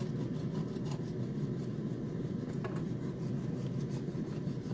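Serrated bread knife sawing through the crust and crumb of a baked loaf cake in its tin: a soft, repeated rasping of knife strokes over a steady low hum.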